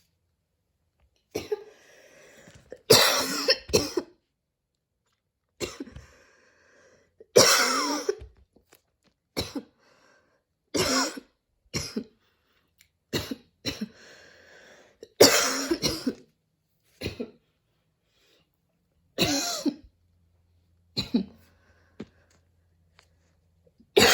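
A woman coughing in repeated fits of harsh, wheezy coughs, with quieter wheezing breaths between them: her airways are set off by running in allergy season.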